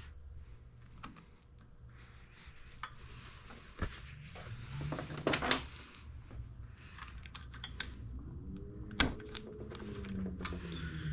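Hand tools and small metal parts clicking and tapping during engine-case reassembly, with two sharper clinks about five and nine seconds in.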